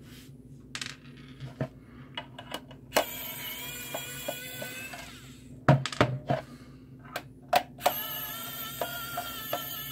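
Pen-style electric precision screwdriver running twice for a few seconds each, whining steadily as it backs screws out of a soldering station's metal case. Between the runs come a few sharp knocks, the loudest sounds, with small clicks throughout.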